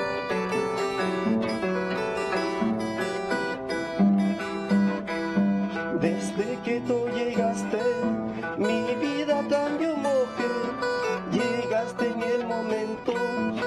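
Large wooden Andean harp plucked, playing a song melody over bass notes; a man's singing voice joins about six seconds in.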